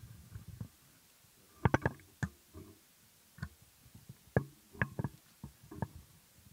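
Microphone handling noise from a podcast microphone and its stand being gripped and moved: irregular knocks, clicks and dull thumps, the loudest a little under two seconds in and again past the middle.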